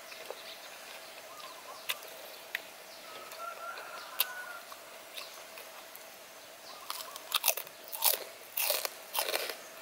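Close-miked chewing and crunching of crisp fried food: a few scattered crunches at first, then a dense run of loud crunches near the end.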